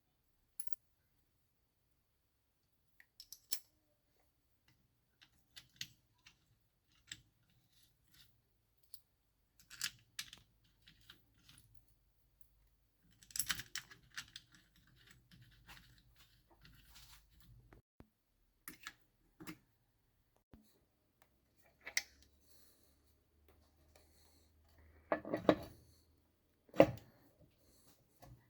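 Scattered clicks, taps and light clinks of engine parts and tools being handled on a workbench, with two louder knocks near the end.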